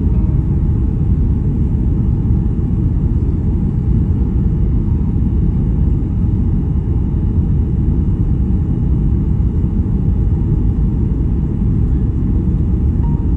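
Airliner cabin noise during landing: a loud, steady low rumble with no distinct events.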